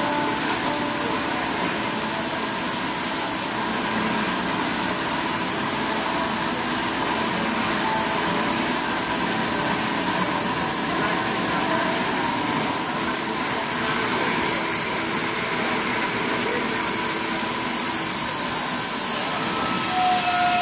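Hundegger K2 CNC timber-joinery machine running while it saws a log, a steady, even mechanical noise.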